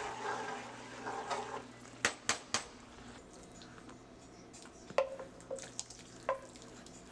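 Utensils clinking and knocking against a pan of tomato cooking liquid: a light sizzle and stirring for the first second or two, then a few sharp clicks about two seconds in and again near the end.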